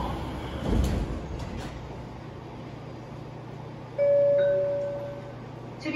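Two-note electronic chime over a subway car's public-address speakers about four seconds in, fading within about a second, the signal that precedes an on-board announcement. Before it, a dull thump about a second in, over the car's steady low hum.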